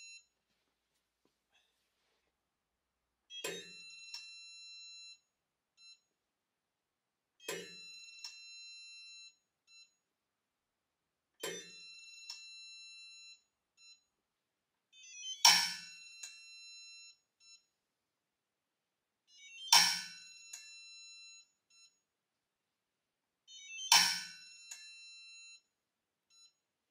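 Six pulls of a half-inch Snap-On split-beam torque wrench on a digital torque tester, about four seconds apart. Each pull ends in a sharp click as the wrench breaks over at its set torque, followed by a beep of about a second and a half from the tester. The last three clicks, at the higher 150 ft-lb setting, are louder.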